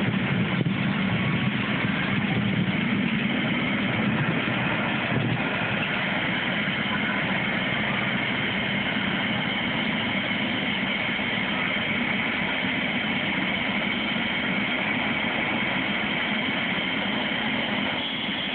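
Helicopter's turbine engine idling on the ground with the main rotor turning, a steady whine over a low rumble, as it warms up before take-off.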